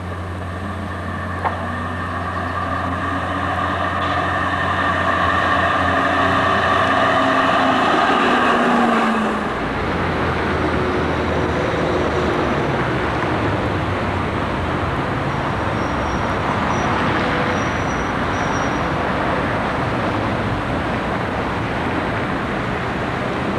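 Tram and street traffic noise with a steady humming drone whose pitch rises shortly before a sudden change. Then a tram rolling slowly through a depot hall, a continuous rumbling noise with a few brief high squeals from the wheels on the curved track.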